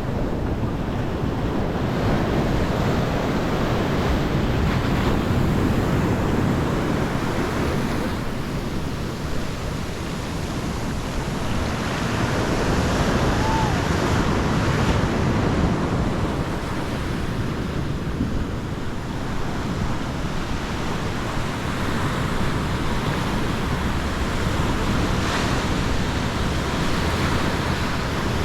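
Sea waves breaking and washing up on a sandy beach, a steady surf rush that swells and eases every several seconds, with wind buffeting the microphone.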